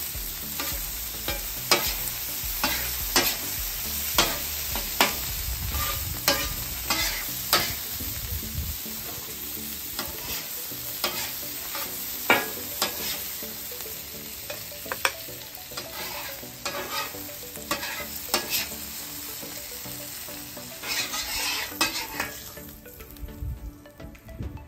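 Beef tenderloin steak bites sizzling in garlic butter on a hot flat-top griddle. A metal spatula scrapes and clacks against the steel plate in irregular strokes as the bites are tossed. The sizzle and scraping stop shortly before the end.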